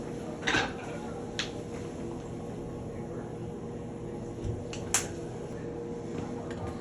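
A few sharp clicks as shower valve trim parts are handled and fitted, three of them: about half a second in, at one and a half seconds, and near five seconds. They sit over a steady background hum.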